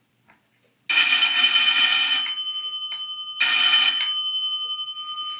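Antique Edwards battery-powered electric doorbell ringing twice: a long ring of about a second and a half starting about a second in, then a shorter ring about a second later, its gong tones humming on and slowly fading after each.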